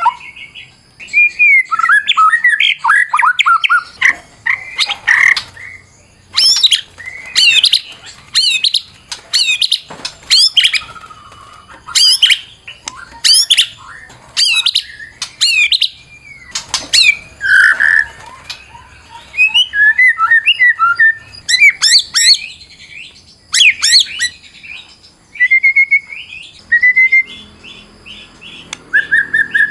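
White-rumped shama (murai batu) singing a loud, varied song. The phrases are short whistles, steep up-and-down sweeps and chattering notes, broken by brief pauses, with a fast run of repeated notes near the end.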